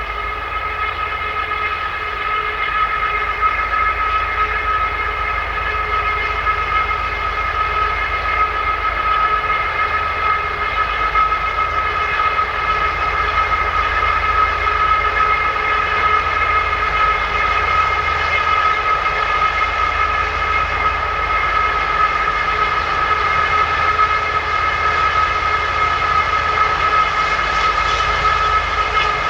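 2TE10UK diesel locomotive making its strange sound: a steady, high whine of several tones over a low engine rumble, growing slightly louder over the first few seconds and then holding without a change in pitch.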